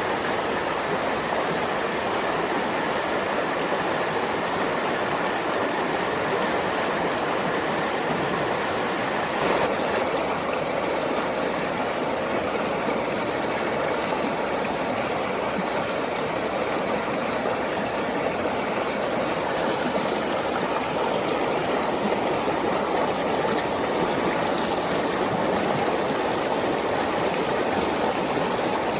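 Steady rush of running water, like a stream, with a single brief tick about nine and a half seconds in.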